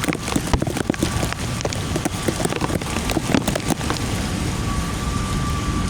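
Heavy storm rain pouring down, with many sharp drops striking a nearby surface over the first few seconds. A faint steady whine comes in near the end.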